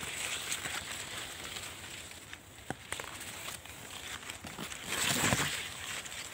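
Maize leaves rustling as someone moves through a dense stand of corn plants, with a few small clicks and a louder rustle about five seconds in.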